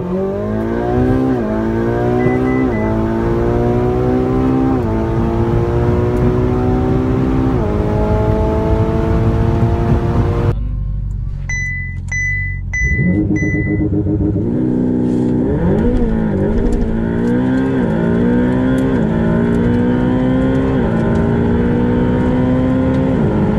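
Ferrari 488 GTB's 3.9-litre twin-turbo V8, PP-Performance tune, heard from inside the cabin under hard acceleration, its pitch climbing and dropping sharply at each quick dual-clutch upshift. After an abrupt cut, four short electronic beeps sound over a low hum. Then a Ferrari 488 Pista's 3.9-litre twin-turbo V8 launches from standstill and pulls up through the gears, upshifting every second or two.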